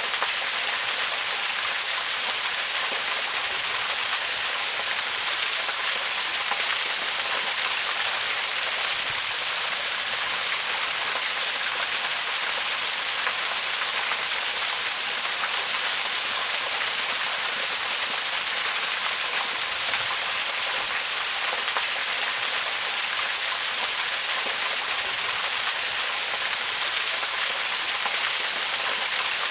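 Waterfall: a steady, even rush of falling water, mostly high hiss with little low rumble, unchanging throughout.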